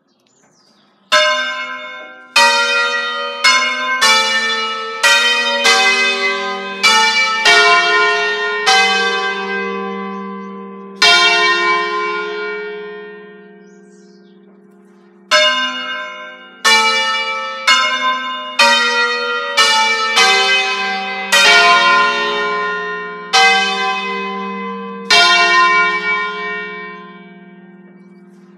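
Five-bell Ambrosian-system church bell peal in F, rung automatically in a pre-set melodic concerto. The bells play two phrases of about ten strokes each, one starting about a second in and the other about fifteen seconds in. Each phrase closes on a note that is left to ring and die away.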